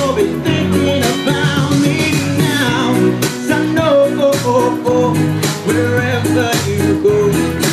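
A song playing: a singing voice over guitar with a steady beat.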